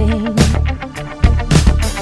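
Background music: a funk-style track with a steady drum beat and guitar.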